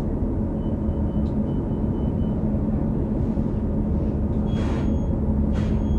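Interior drone of a New Flyer XD40 transit bus under way, its Cummins L9 diesel and Allison transmission running steadily, with a thin high whine of the kind the uploader puts down to odd-sounding transmission bearings. Two short hisses come near the end.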